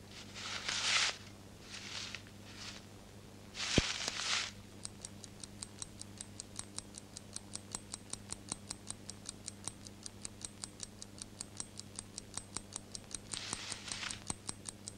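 Crumpled newspaper costumes rustling in short bursts, with one sharp click about four seconds in. Then a steady fast ticking, about four ticks a second, runs on under a last rustle near the end.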